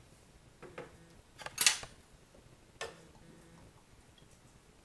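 A few sharp clicks and clinks as a soy sauce bottle and a metal measuring spoon are handled, three in all, the loudest about a second and a half in and the last one ringing briefly.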